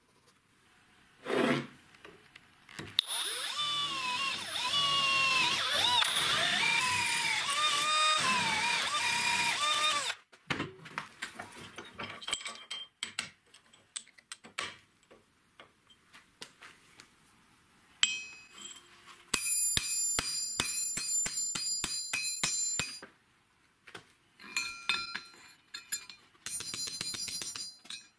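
An electric power tool works steel profile tube for several seconds, its pitch wavering as it loads up. Scattered light taps follow, then rapid hammer blows that ring on steel, with a shorter burst near the end.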